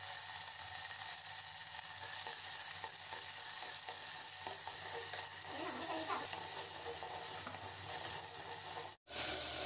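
Crushed turkey berries (sundakkai) sizzling steadily in hot sesame oil in a clay pot, stirred with a wooden spatula. The sound cuts out for an instant near the end.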